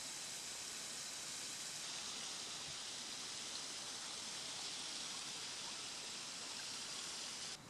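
Steady outdoor ambience: an even, high hiss with no distinct events, which cuts off suddenly near the end.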